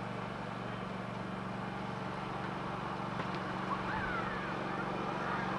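Small garden tractor engine running steadily at a distance, a low even hum, with a faint high call about four seconds in.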